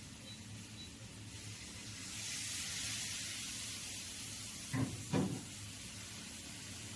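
A soft hiss swells and fades over a couple of seconds. Then come two short knocks, a ceramic cat-food dish being nudged across the tabletop by a feeding cat.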